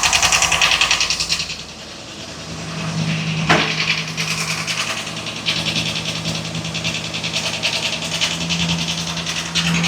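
Ford 7.3 L gasoline V8 idling with a fast, even clatter from the top end of the engine, set off by one sharper click about three and a half seconds in. The mechanic rules out rod and crankshaft knock and suspects the camshaft; the engine has a P0300 random-misfire code.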